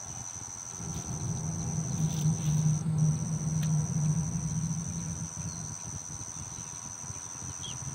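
Steady high-pitched drone of insects. A low rumble swells up about a second in and fades out again after a few seconds.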